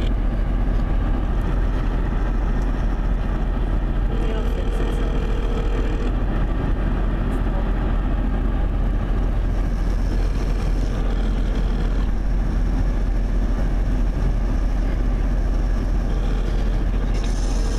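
Telephone ringback tone over a phone's loudspeaker inside a moving car: three rings, each about two seconds long with about four seconds between them, meaning the call is ringing through but not yet answered. Under it runs the steady road and wind noise of the car at highway speed.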